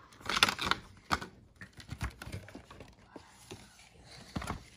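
Clear plastic insert tray of a trading-card collection box being handled and pried at, with crackling clicks that are busiest in the first second. Scattered light clicks follow, then a sharper tap near the end.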